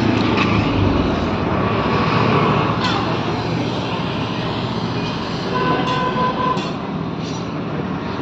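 Welding on a leaking tractor diesel tank: a steady rushing noise, with a few sharp clicks.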